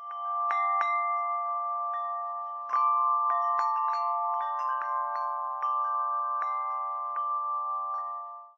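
Chime sound effect: bell-like tones struck at irregular moments over a held, ringing chord, like wind chimes. It stops abruptly at the end.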